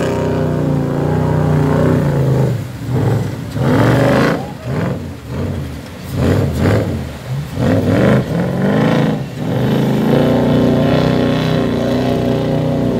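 V8 engine of a portal-axle off-road 4x4 running hard while the truck churns through a river. For about the first two and a half seconds it holds a steady pitch. It is then revved up and down in quick repeated blips until about ten seconds in, and settles back into steady running. Water splashes around the wheels.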